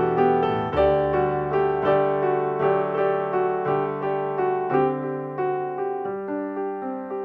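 Background piano music: a solo piano playing a gentle, evenly paced melody over held bass notes.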